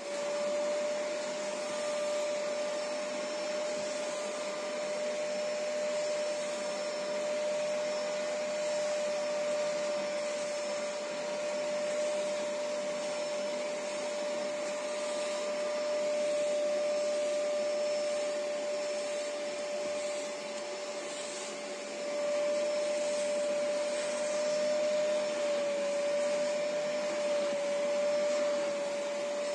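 Vacuum motor running steadily, with a strong high hum and a rush of air, as a hand-held upholstery nozzle is drawn across a mattress to suck out dirt. The sound dips slightly for a moment about two-thirds of the way through, then comes back up.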